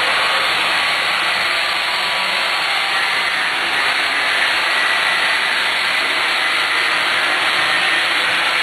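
Model trains running on the layout: a steady, unbroken whirring hiss.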